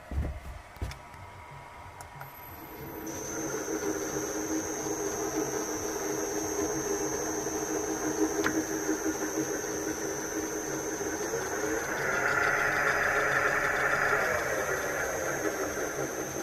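2G106P benchtop drill press: a couple of knocks, then its electric motor and spindle start up about three seconds in and run with a steady hum and a high whine. About twelve seconds in the pitch shifts and the running grows louder for a couple of seconds, then eases back.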